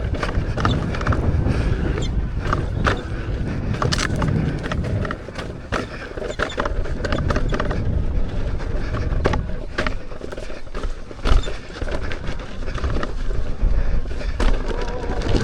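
Electric unicycle being ridden over a rough dirt trail: a steady rush of wind and tyre noise with frequent sharp knocks and rattles as the wheel hits bumps and stones.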